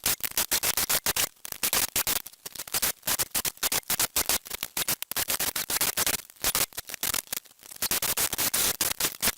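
Saw cutting through pallet wood: a loud, choppy, scratchy cutting noise broken by many short gaps.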